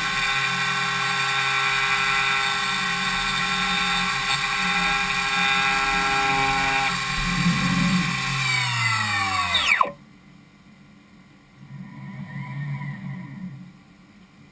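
Spindle of a DMU 70V 5-axis CNC machining centre running at speed during impeller-blade milling, a steady high whine with many tones. About seven seconds in it winds down, all its tones falling in pitch, and it stops about ten seconds in. A quieter, brief mechanical whir follows near the end.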